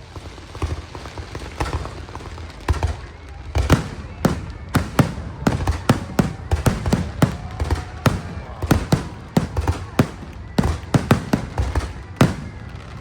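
Aerial fireworks bursting: sharp bangs and booms, a few spaced ones at first, then coming thick and fast from about four seconds in.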